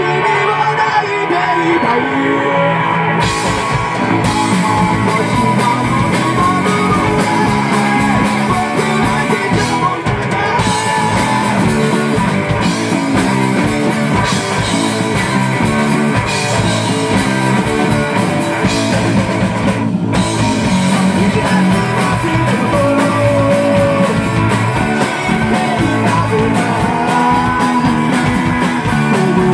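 Live rock band playing loud: electric guitar and drum kit, with a singer's voice. The drums come in about three seconds in and keep a steady beat.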